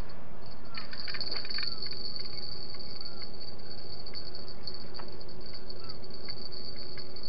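Night insects, such as crickets or bush-crickets, chirring in a continuous, high-pitched, even drone, with a faint steady low hum beneath it and a few short faint calls now and then.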